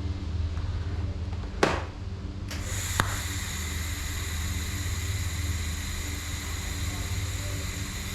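Steady low machine hum with two sharp knocks, the second about a second and a half after the first; a steady high hiss with faint thin tones sets in between them and carries on.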